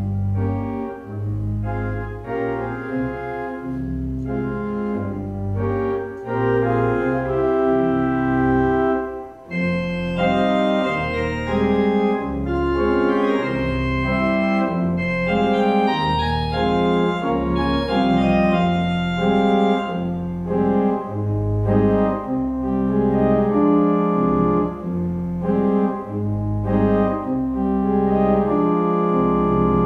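Organ playing slow, sustained chords over a moving bass line.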